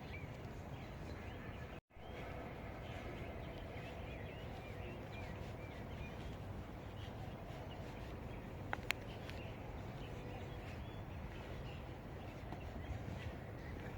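Small birds chirping in many short, quick calls over a steady low background rumble, with two sharp clicks about nine seconds in.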